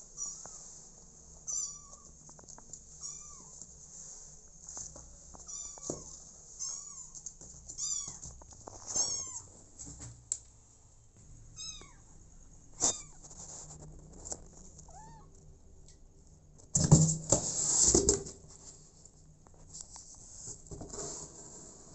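Young kittens mewing in short, high-pitched cries, again and again. A louder burst of scraping and rustling comes about seventeen seconds in.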